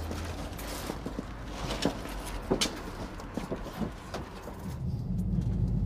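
Scattered light clicks and knocks of handling and movement beside a police van; near the end a vehicle engine's low steady rumble comes in.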